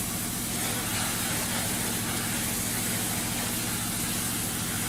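Steady hissing over a low, steady engine hum.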